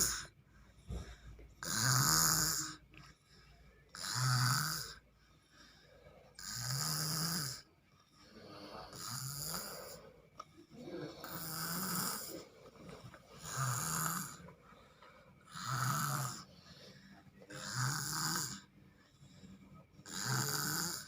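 A sleeping person snoring steadily, about one snore every two to two and a half seconds, each a low buzz with a breathy hiss.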